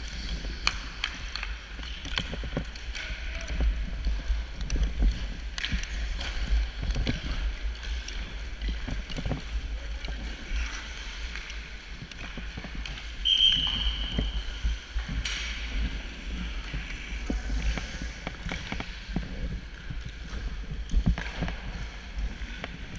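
Hockey sled gliding over rink ice, its blades scraping under a steady low rumble. Irregular knocks and clicks come as the stick picks dig into and tap the ice. A short high tone sounds about halfway through.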